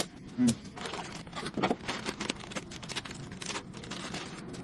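A run of irregular clicks and knocks, with one louder knock about half a second in.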